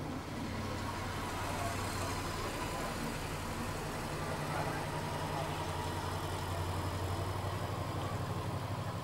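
Jet engine of a distant fighter jet in flight: a steady rushing noise with a low hum underneath.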